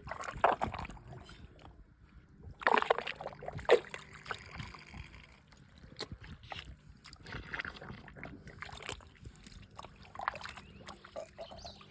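Water splashing and sloshing in irregular bursts, loudest about three seconds in.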